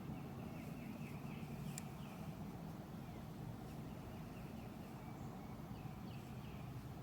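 Faint bird calls, a run of short falling chirps in the first couple of seconds and a few more near the end, over a low steady background hum.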